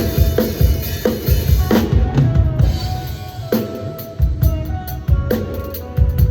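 Drum kit being played in a steady groove, with bass drum and snare hits struck in quick succession.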